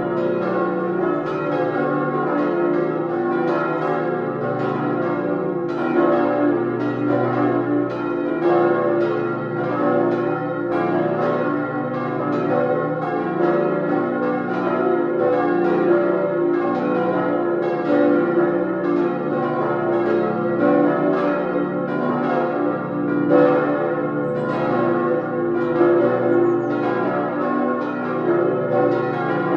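Full peal of cast-steel church bells swinging together, their strikes overlapping in a steady, continuous ringing.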